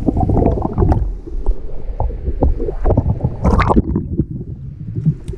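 Muffled underwater sound picked up by an action camera in its waterproof housing: a low, steady rumble of water moving past as the diver swims, with scattered clicks and a short hissing burst about three and a half seconds in.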